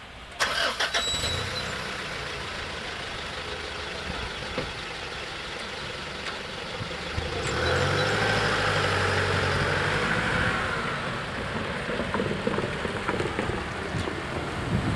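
Road traffic moving off across a level crossing once the barriers have lifted: a vehicle engine running, loudest from about eight to eleven seconds in, then tyres rolling and knocking over the crossing near the end. A short clatter about half a second in.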